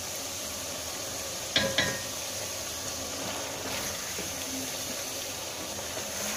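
Chicken pieces sizzling steadily as they fry in oil in an aluminium pot. Two sharp metallic knocks with a short ring about one and a half seconds in.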